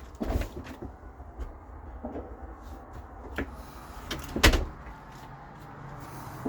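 Scattered sharp bangs and pops of celebratory gunfire and fireworks, several reports near the start and the loudest bang about four and a half seconds in.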